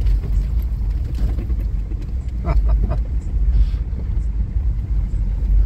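Toyota 4Runner heard from inside the cabin, driving slowly along a sandy wash: a steady low rumble of engine and tyres rolling over sand and gravel.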